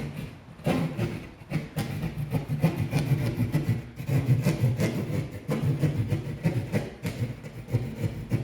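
Hand saw cutting a hole through a wall for an old-work electrical box, in quick back-and-forth strokes with a few short pauses.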